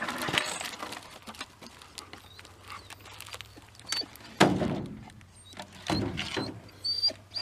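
Several heavy thunks, the loudest about four and a half seconds in, over a faint steady low hum.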